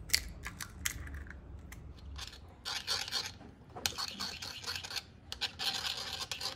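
An eggshell cracking and being pulled apart with small clicks, then from about two and a half seconds in a metal spoon beating eggs in a ceramic bowl, scraping against the bowl in repeated strokes.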